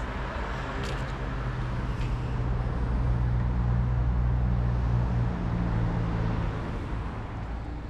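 City street traffic: a motor vehicle's engine runs close by with a low, steady hum. It grows louder a few seconds in and fades near the end, over a general wash of street noise.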